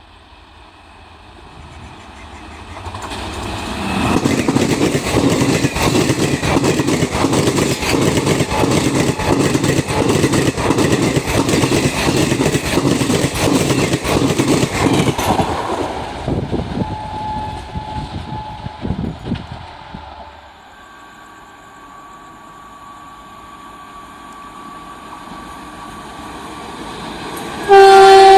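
An Indian Railways express train rushes past at speed, its wheels clattering rapidly over the rail joints for about ten seconds before fading away. Another train then approaches, and its horn starts a loud blast just before the end.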